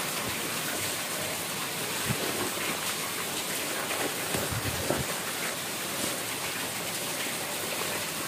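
Plastic wrapping crinkling and rustling as hands pull it out of a cardboard box, with a few soft knocks about two seconds in and again around the middle.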